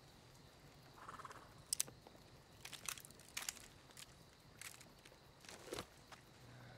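Faint scattered clicks and rustles: several sharp ticks spread over a few seconds against a quiet background.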